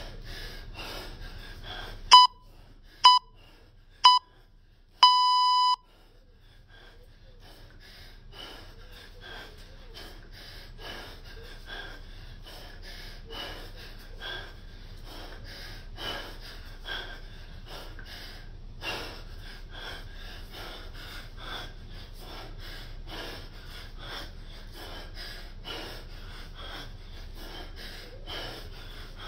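Hard, rhythmic breathing of a man snatching a 24 kg kettlebell, each breath forced out in time with the swings. About two seconds in, an electronic timer gives three short beeps a second apart and then one longer beep, the countdown pattern of an interval timer.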